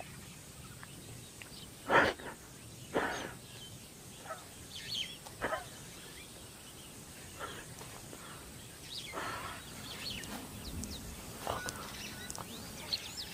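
A sick adolescent lion retching and gagging in short, rough heaves, the loudest two about two and three seconds in and weaker ones every second or two after, with birds chirping in the background. The sickness may come from eating rotten hippo or from emotional upset.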